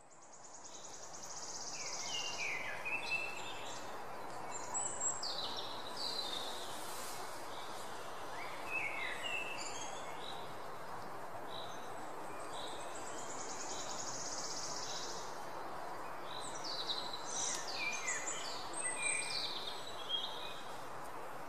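Outdoor nature ambience fading in over the first couple of seconds: small birds chirping and calling in scattered bursts over a steady background hiss, with a high trilling buzz twice.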